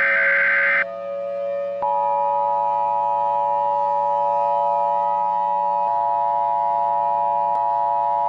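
Emergency Alert System tones: the last burst of the digital header data, a harsh buzzing chirr, cuts off about a second in. About a second later the steady two-tone EAS attention signal starts and holds. A low drone of held tones runs underneath.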